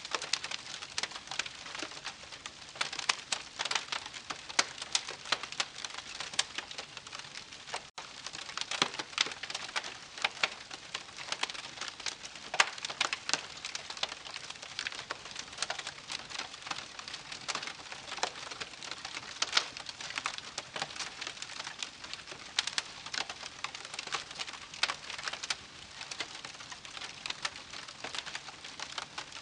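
Wood campfire crackling steadily, with dense irregular pops and snaps over a soft hiss of burning, broken by a split-second dropout about eight seconds in.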